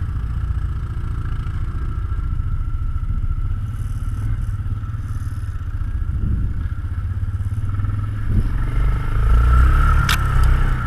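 ATV engine running at low trail speed, heard from a camera on its own handlebars: a steady low rumble that swells near the end. A single sharp knock or snap comes about ten seconds in.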